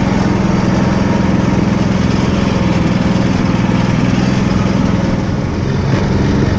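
Quad bike (ATV) engine running steadily while riding a rough dirt track. Its note eases and changes about five seconds in.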